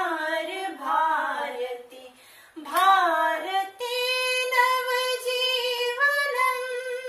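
A solo female voice singing a dhyeya geet, a melodic anthem-like song in Sanskrit/Hindi, with long held notes and a short breath pause about two seconds in.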